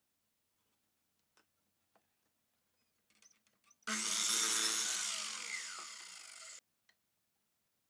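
A power tool runs on wood: it starts suddenly about four seconds in, fades slightly over about two and a half seconds, then cuts off abruptly. A few faint clicks come before it.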